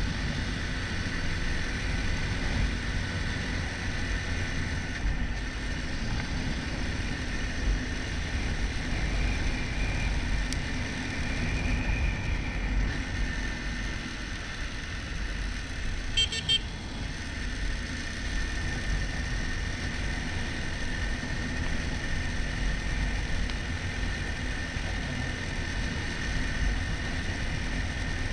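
Road vehicle noise: a steady low rumble, with a brief run of quick beeps or toots about sixteen seconds in.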